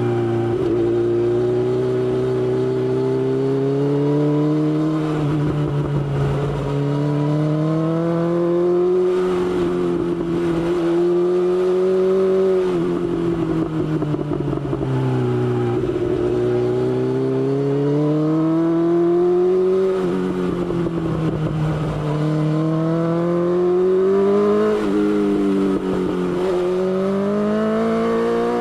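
BMW S1000XR motorcycle's inline-four engine under way, its revs climbing steadily and then dropping back about four times as the throttle is opened and rolled off, with some low wind rumble.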